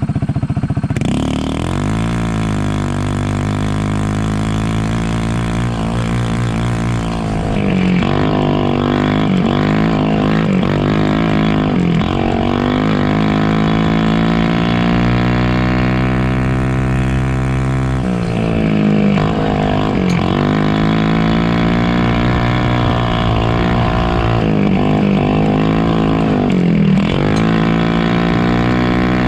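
Polaris RZR 170's small single-cylinder four-stroke engine, heard from on board, running under load as the side-by-side laps the track. Its pitch rises and falls again and again as the throttle is opened and eased, with one long steady climb past the middle and several sharp dips where it is let off.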